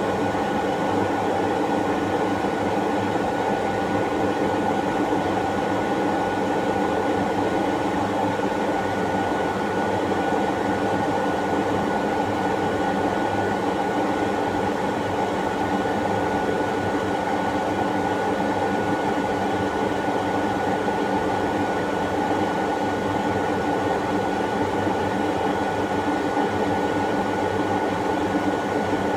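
Steady mechanical hum and rumble with a constant thin high whine, unchanging in level.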